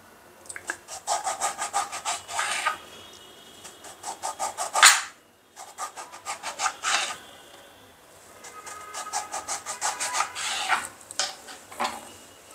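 Small kitchen knife sawing slice after slice through a whole lime on a cutting board: bursts of quick rasping strokes through the rind, with one louder stroke about five seconds in.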